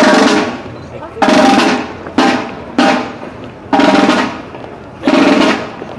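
Marching drums playing a string of loud, sharp rolls and accented hits, about six in six seconds, each fading quickly before the next.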